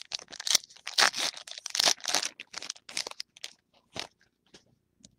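Foil wrapper of a 2011 Topps Lineage baseball card pack crinkling and crackling as it is handled and pulled off the cards. The crackles come thick and fast for about three seconds, then thin out to a few scattered ones.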